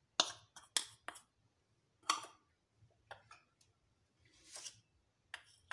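A metal spoon clicking and tapping against a glass mixing bowl and a small serving bowl while cornflour is spooned in: a quick run of sharp ticks in the first second, then a few more spread out, with a soft brushing sound a little past the middle.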